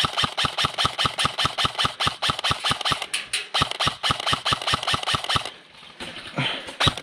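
AR-style airsoft rifle firing a long rapid string of shots, about eight a second, with a short pause near the end before firing resumes.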